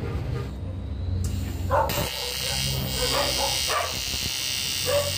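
Aluminium TIG welding arc striking about two seconds in, then a steady buzzing hiss as the arc burns on an aluminium engine crankcase around a stuck broken bolt, with filler rod fed in by hand. Short bark-like sounds come over it a few times.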